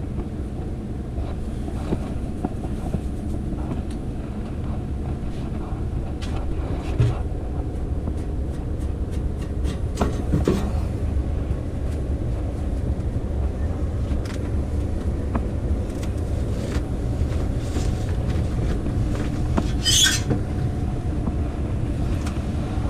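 Furnace blower running steadily with a low rumble, on from the start of a call for heat, with scattered light clicks and a brief sharp rustle near the end.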